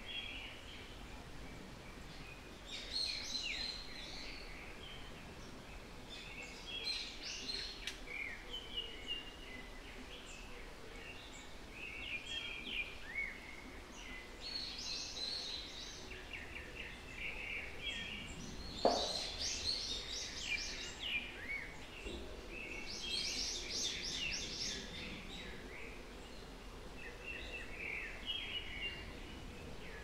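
Songbirds singing in short, repeated phrases every few seconds over a faint steady background hiss. A single sharp knock sounds about two-thirds of the way through.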